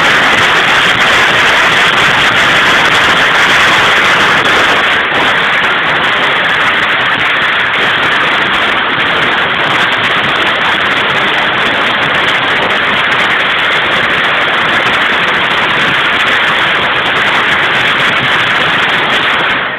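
A string of small firecrackers going off on concrete in one long, rapid, continuous crackle, loud and dense throughout, stopping abruptly near the end.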